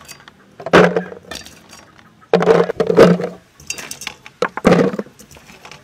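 Small green jujube fruits clattering against a clear plastic jar as they are tipped in by the handful, in several separate bursts.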